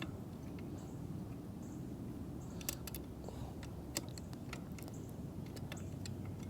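Scattered light metallic clicks and taps, irregular and sparse, from an Allen wrench being worked on the electric dirt bike's rear axle adjuster bolts, over a faint steady hum.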